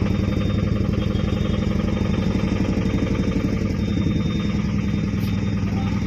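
A running engine's steady low drone, even and unchanging.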